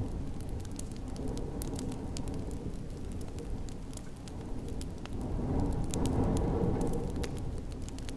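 Wood fire crackling with scattered sharp pops, over the low rushing wind of a snowstorm that swells louder about halfway through.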